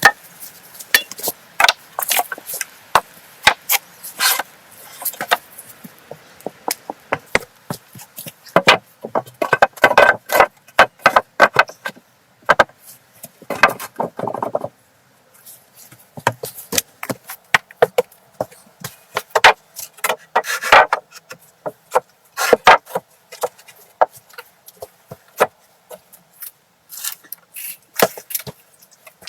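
Hand-tool building work: irregular sharp knocks and chopping strikes, with stretches of scraping or rubbing between them.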